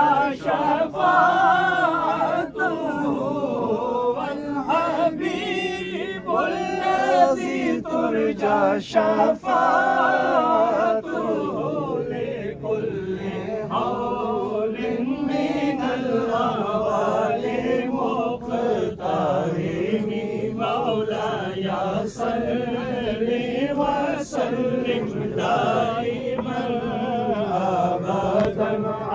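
Many men's voices chanting together in unison, a slow drawn-out chant that rises and falls in pitch without pause.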